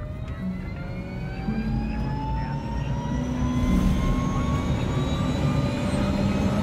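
Helicopter turbine engine spooling up: a whine rising steadily in pitch over a low rumble, getting louder as it winds up toward flight speed.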